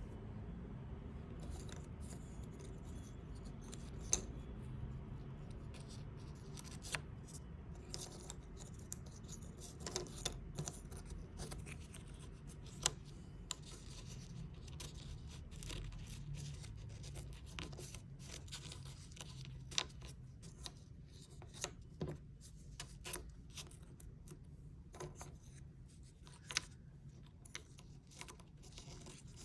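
Hands handling a shark puzzle and its packaging: scattered light clicks and taps with scratching and rubbing, over a low steady hum.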